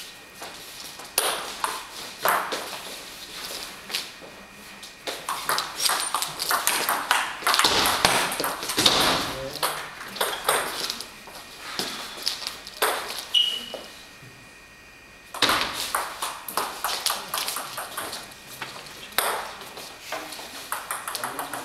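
Table tennis ball being played in rallies, clicking off the bats and bouncing on the table in quick sharp taps, with a brief lull a little past the middle before play resumes.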